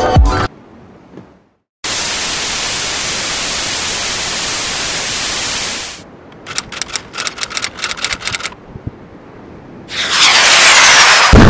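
Editing sound effects: a burst of white-noise static that starts and stops abruptly, then a run of rapid crackling clicks, then a loud rushing swell that breaks into a heavy low boom near the end.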